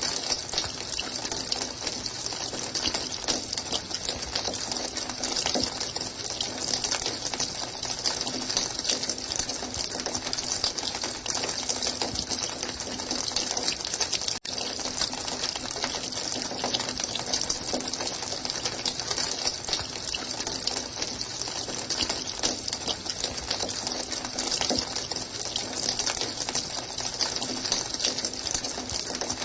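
Steady running water, an even rushing hiss with a momentary dip about halfway through.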